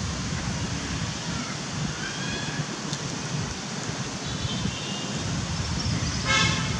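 Steady outdoor background noise with a low rumble. A few faint high chirps come in the middle, and a short pitched call sounds about six and a half seconds in.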